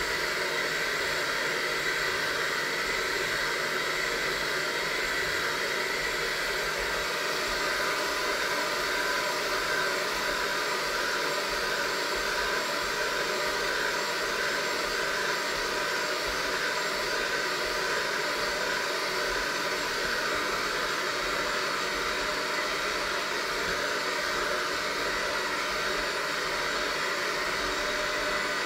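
Electric hand mixer running steadily at an even speed, its beaters working a flour mixture in a stainless steel bowl.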